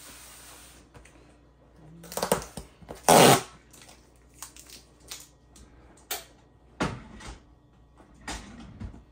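Packing tape being torn off a cardboard box. The loudest rip, about half a second long, comes about three seconds in, followed by scattered rustles and taps from handling the box.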